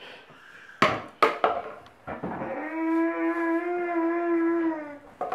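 A toddler's voice held as one long, steady 'ooo' note into a wrapping-paper tube at his mouth, lasting about three seconds. A few sharp knocks come about a second in.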